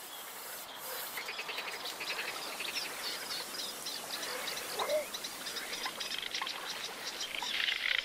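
Great reed warblers singing in a reed bed: rapid, varied runs of harsh chirping notes repeated several times a second, over a faint hiss of insects.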